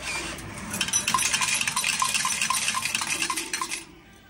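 Coins clattering out of a change machine into its tray, a rapid metallic run with about four ringing pings a second, stopping suddenly near the end.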